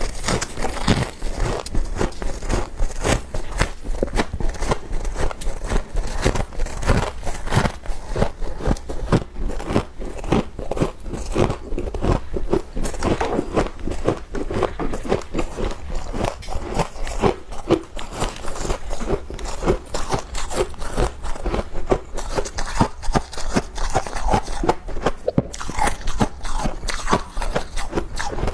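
Freezer frost being bitten and chewed close to the microphone: dense, continuous crunching with many sharp crackles.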